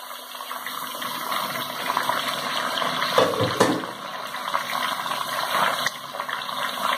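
Beef and bones sizzling in hot oil and browned onions in an aluminium pressure cooker. A louder surge of sizzle about three seconds in as more pieces drop into the pot.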